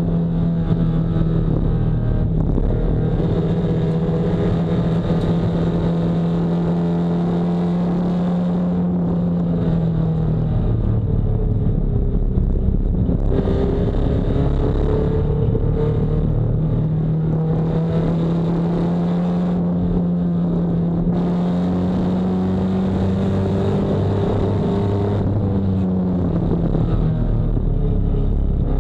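Nissan 240SX race car's engine running hard at high revs, heard from inside the car. Its pitch holds nearly steady for long stretches, falls away about ten seconds in and climbs back, then falls again near the end.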